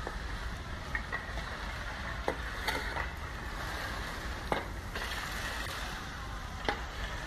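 Shallow muddy floodwater sloshing across a street: a steady watery hiss broken by a few short, sharp splashes.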